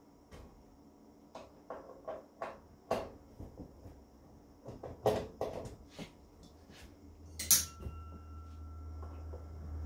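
Sheet-metal breaker panel cover being handled: a string of light knocks and clicks, then one sharp metallic clank about seven and a half seconds in that leaves a thin ringing tone.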